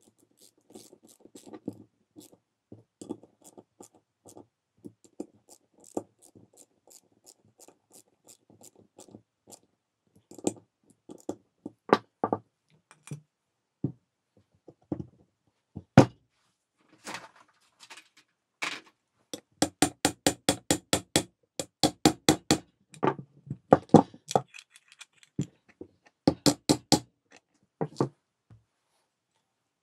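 Light metallic clicks and scrapes of a T-handle socket wrench working the screws on an old Dacia alternator's aluminium end frame. About halfway through come sharp metal knocks, then quick runs of ringing taps, about five a second, from a small hammer tapping the alternator apart.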